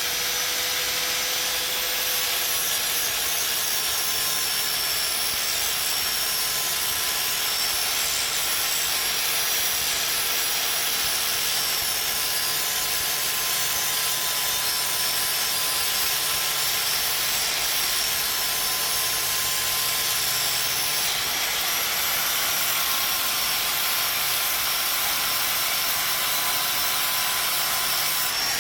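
Electric right-angle grinder with a sanding disc running steadily while grinding steel off the heavy end of a lawnmower blade: a steady motor whine over a rasping grind. Metal is being taken off to sharpen the blade and bring it into balance.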